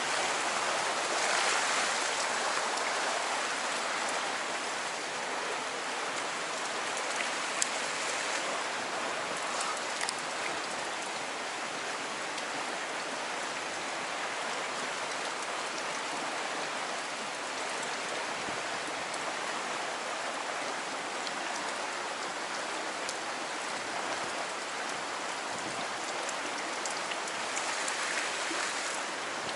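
Fast-flowing stream rushing through a rock channel, a steady hiss of running water, with a few faint clicks.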